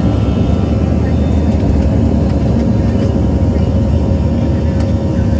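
Boeing 737-700's CFM56 jet engines running with a steady, loud low rumble and a faint steady whine.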